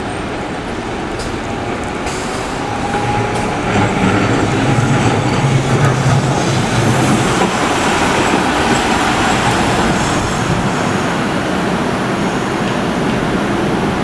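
Hiroshima Electric Railway 900-series tram, a former Osaka city tramcar, running on wet street track as it arrives at a stop. Its wheels and motors rumble steadily and grow louder about three to four seconds in as it draws close and passes.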